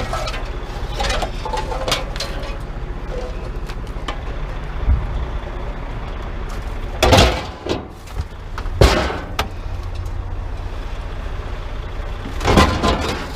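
Scrap items knocking and clunking as they are handled on a truck, a few separate knocks about halfway through and a cluster near the end, over a steady low rumble.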